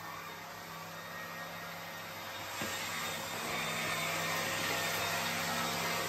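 Vacuum cleaner running on a carpet: a steady motor hum under the rush of suction air, getting louder about two and a half seconds in, with a faint click at that moment.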